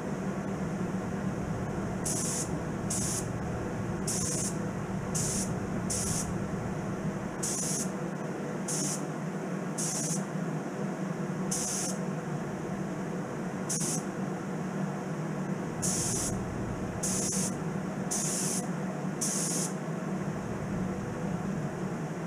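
Gravity-feed spray gun hissing in about fourteen short bursts as Cerakote coating is sprayed onto small hanging parts, over a steady low hum.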